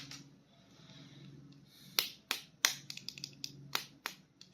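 Sharp, irregular plastic clicks and taps from handling a toy action figure, starting about two seconds in and coming several a second, over a faint low hum.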